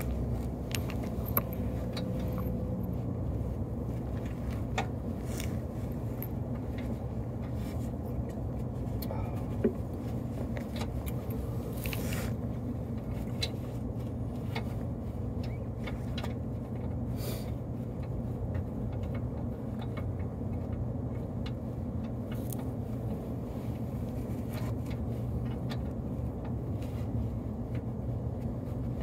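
Occasional light metallic clinks and scrapes of bolts and hand tools while control-arm bolts are pushed through and their nuts started by hand, over a steady low hum.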